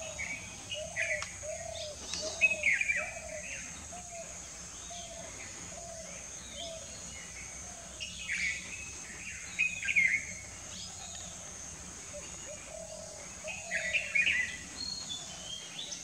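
Wild birds calling in a forest: several bouts of loud chirping calls, the loudest about two and a half seconds in and again near ten seconds. Under them run a steady high-pitched drone and a series of short, low repeated notes.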